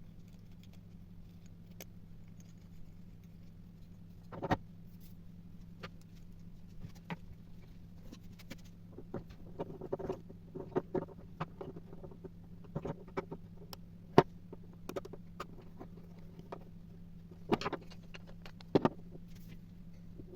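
Scattered light clicks, taps and rustling of small parts being handled, a few sharper knocks among them, over a steady low hum.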